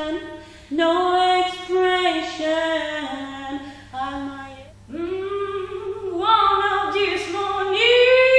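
Young women singing solo and unaccompanied, holding long notes. Just before five seconds in, one voice gives way to another, which starts low, climbs and holds a higher note near the end.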